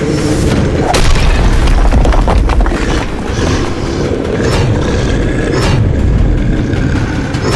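Cinematic monster-trailer sound design: heavy booms and deep rumbling with sharp impacts, the loudest hit about a second in, over background music.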